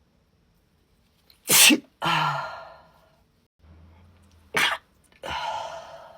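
A woman sneezing twice in a sneezing fit, about three seconds apart. Each sneeze is a sharp burst followed by a breathy trailing release.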